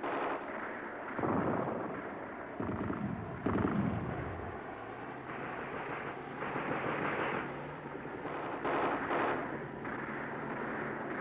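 Battle sounds of gunfire and explosions: several heavy blasts in the first few seconds, then more scattered bursts over a steady low drone.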